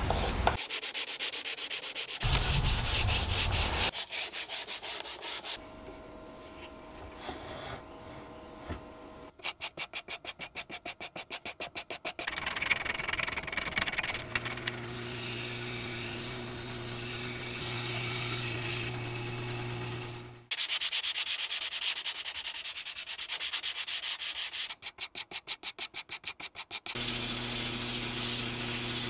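Sandpaper and a scraper worked over wooden chair parts in quick back-and-forth strokes, alternating with sandpaper held against a wooden spindle turning on a wood lathe, whose motor gives a steady low hum under the sanding.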